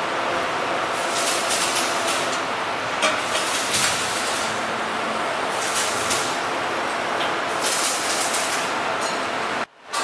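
Steady factory machinery noise with hissing surges every second or two. It cuts out briefly near the end.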